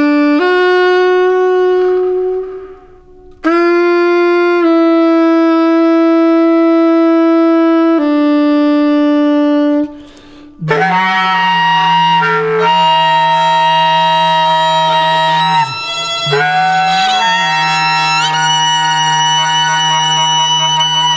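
Soprano saxophone playing long, held notes, with two short breaks. About halfway through, a low steady drone enters beneath dense, layered tones, in a slow free improvisation.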